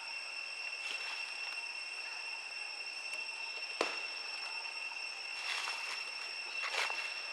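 A steady high-pitched whine, with a single sharp click about four seconds in and brief rustling bursts near the end.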